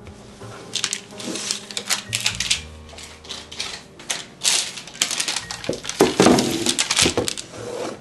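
Parchment paper crinkling and rustling in irregular bursts as a sheet of chocolate-coated cookies is handled and set on a wooden table, loudest about six seconds in. Soft music plays underneath.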